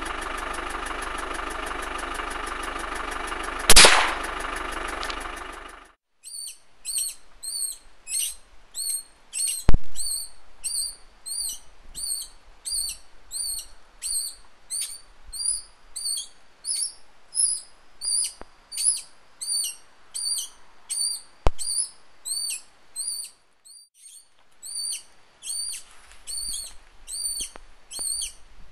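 A steady engine hum with one sharp, loud rifle crack about four seconds in. Then a regular run of high chirps, about one and a half a second, with two more sharp cracks among them; the loudest comes about ten seconds in. The chirps stop briefly near the end and then start again.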